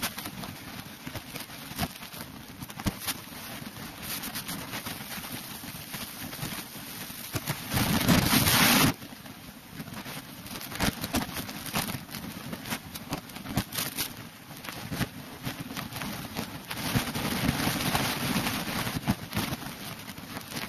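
Rushing water of a canyon waterfall sliding down rock, with crackling wind noise on the microphone. A loud gust of noise lasts about a second, a little under halfway through.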